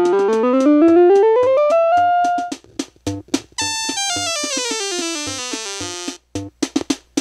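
The Fisher SC-300K boombox's built-in electronic keyboard playing through its speakers. A quick run of notes climbs for a couple of seconds, then another run falls from high to low. A steady electronic beat ticks about four times a second throughout.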